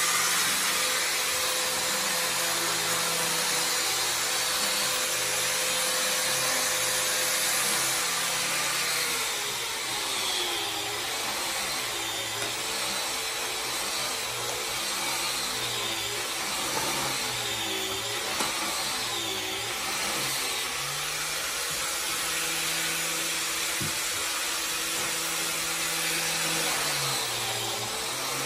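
Electric woodworking power tool running continuously with a steady hiss, its motor pitch dipping and recovering again and again in the middle stretch as it works.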